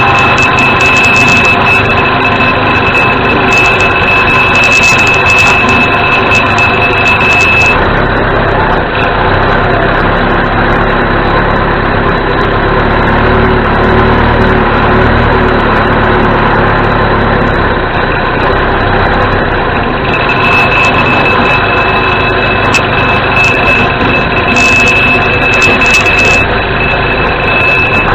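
John Deere 210C backhoe loader's four-cylinder diesel engine running steadily and loudly. A steady high-pitched alarm tone sounds over it for the first several seconds, stops, and comes back for the last several seconds.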